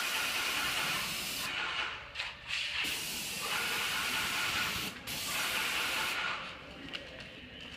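Graco Jet Roller hissing as pressurized paint is fed through it onto the roller cover, in three stretches with short breaks: through the first second and a half, then from about three to five seconds, then briefly again until about six and a half seconds.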